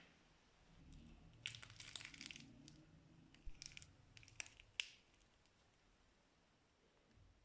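Faint crinkling and crackling of plastic piping bags being handled, in a few short bursts over the first five seconds.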